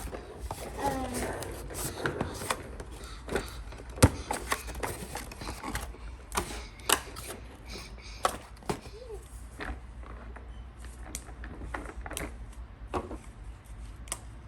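Irregular clicks and taps of plastic Play-Doh toy pieces being handled and set down on a table.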